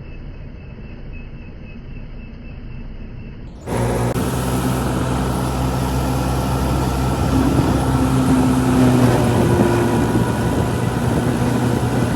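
Old combine harvester's diesel engine running. It is faint and muffled at first, then about three and a half seconds in it cuts abruptly to a loud, close, steady drone.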